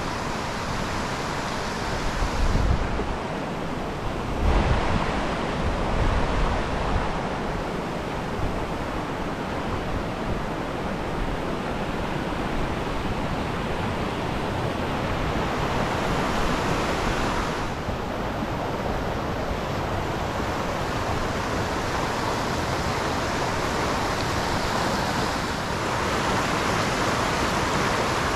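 Fast, rain-swollen creek water rushing steadily, with some low buffeting on the microphone a few seconds in.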